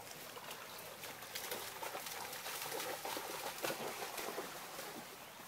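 Twigs and leafy branches rustling and crackling close by in many small, irregular snaps, over the steady rush of a shallow stream.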